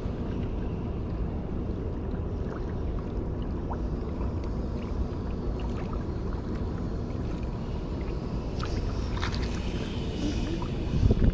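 Steady low rumble of wind on the microphone and sea water at a rocky shoreline, with a few faint ticks, swelling into louder buffeting near the end.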